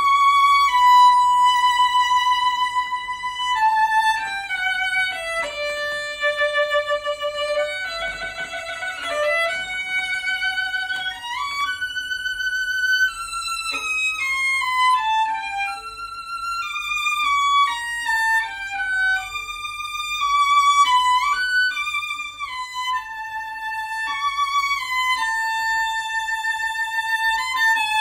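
Solo violin, a Stradivari of the golden period, playing a slow melody high on the instrument. It holds singing notes and slides between some of them, with a short passage of double stops about eight seconds in.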